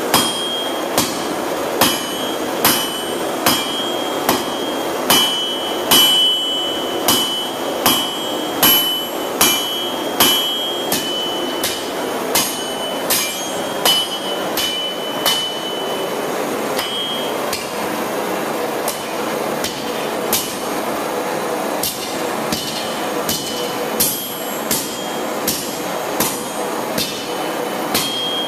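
Blacksmith's hammer striking red-hot steel on an anvil, a steady beat of roughly one and a half blows a second. Many blows leave a high, clear anvil ring. The blows thin out for a few seconds past the middle, then pick up again over a steady rushing noise.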